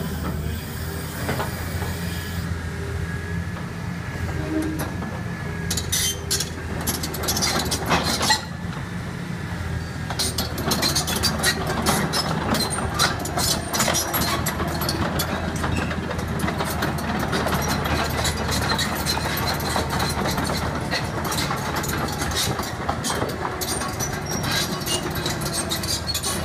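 Caterpillar 330BL excavator's Cat 3306 turbocharged diesel engine running steadily under working load. From about six seconds in, a rapid, irregular metallic clatter of the steel tracks and undercarriage joins it.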